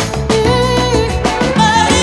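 Background music: an upbeat song with a sung melody over a steady beat.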